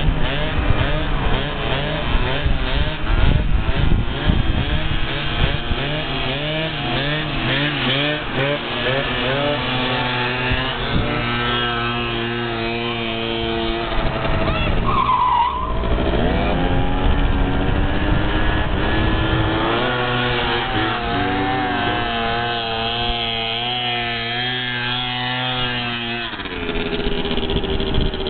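Small motorbike engine revving hard, rising and falling quickly at first. It then holds at steady high revs with slow swells in pitch, rises sharply about halfway and falls back near the end.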